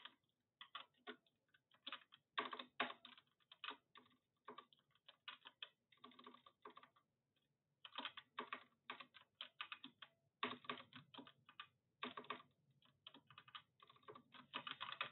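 Faint typing on a computer keyboard: quick runs of key clicks with short pauses between them, and a longer pause about halfway through.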